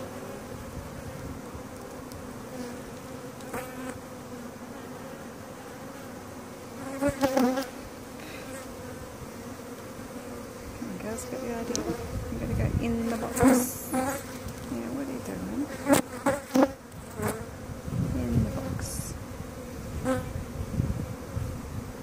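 A mass of honey bees humming steadily with a continuous drone. Several sudden louder knocks break in, once about seven seconds in and a cluster later on.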